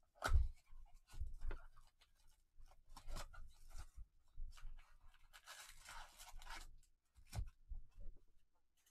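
A shrink-wrapped cardboard trading-card hobby box being opened and emptied by gloved hands. There are separate knocks and crinkles of wrap and cardboard, and a longer rustling stretch around the middle as the foil packs come out of the box.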